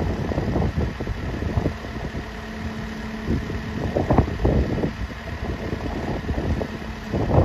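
Snow plow truck working in the distance, its engine a faint steady hum, under gusty wind buffeting the microphone.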